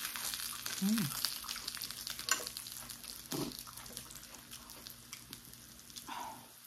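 Dumplings frying in oil in a pan, sizzling and crackling with fine pops, the sizzle dying down gradually. A short hum from the eater is heard about a second in.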